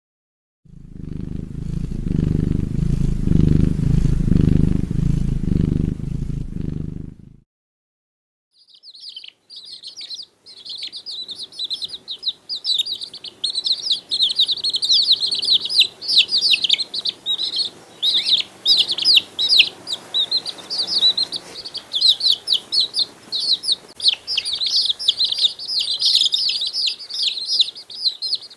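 A loud, low pulsing rumble lasting about six seconds, then after a short silence a long run of rapid, high bird chirps from small birds or chicks.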